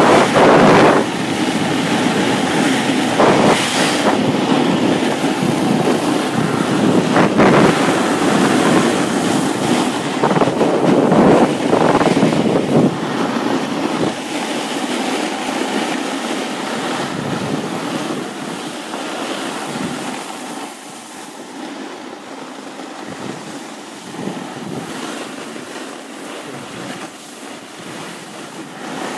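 Wind buffeting the microphone at speed, over the rough rumble of a snowboard sliding over packed snow. It swells in gusts, loudest in the first half, and dies down over the second half.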